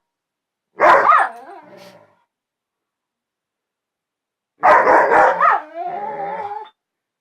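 Dogs 'talking' to each other: two loud bark-like calls, about a second in and again near five seconds, each trailing off into a wavering, pitched howling grumble.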